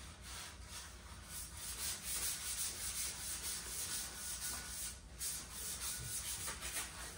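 Wire brush scrubbing a brazed copper pipe joint in quick back-and-forth strokes, cleaning off the blackened residue left by brazing. The scrubbing breaks off briefly about five seconds in.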